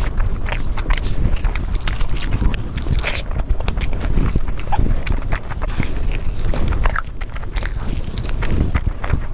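Close-miked chewing of a big mouthful of spiced rice and mutton eaten by hand, with an irregular run of wet mouth smacks and clicks.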